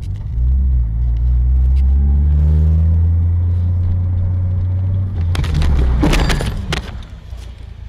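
A car engine running loud, its pitch rising, then about five seconds in a collision between two cars: a cluster of crunching bangs and clatter lasting about a second and a half.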